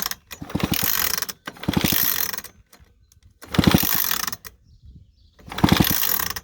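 McCulloch 10-10A chainsaw being cranked on its recoil starter rope: four rapid pulls, each a whirring ratchet lasting about a second, with a longer pause near the middle. The engine spins over without firing during a spark check at the plug.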